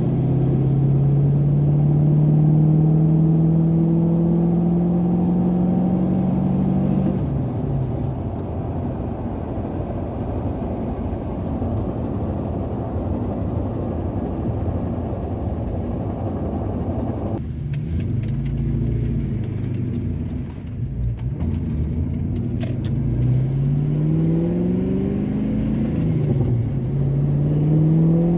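Ford Mustang's 4.6 two-valve V8 pulling on the freeway, heard from inside the cabin with the windows up. Its pitch climbs steadily for the first several seconds, then gives way to a stretch of even road noise, and near the end it climbs again in several quick rising sweeps. Under it, the freshly patched rear differential is catching on a burred ring-gear tooth.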